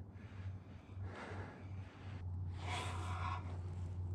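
Spinning reel being cranked against a hooked fish on a bent rod, a soft rough whirring that grows stronger about two and a half seconds in, over a steady low hum.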